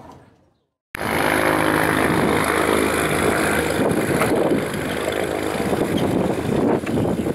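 A small propeller aircraft engine running steadily. It starts abruptly about a second in.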